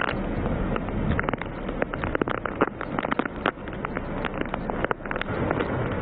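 Cyclone wind and heavy rain: a steady rushing noise broken by many sharp crackles and clicks, dipping briefly a little before the end.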